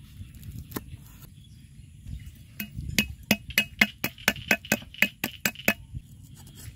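Cleaver chopping red chillies on a wooden chopping block: a quick run of about a dozen sharp chops, about four a second, each with a slight metallic ring, starting about two and a half seconds in.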